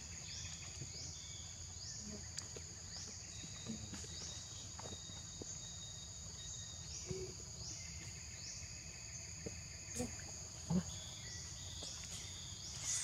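Steady high-pitched chorus of forest insects, with a rising sweep repeating a little more often than once a second.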